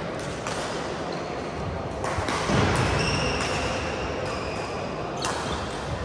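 Badminton court sounds in a large indoor hall: brief high squeaks of shoes on the court floor over steady hall noise.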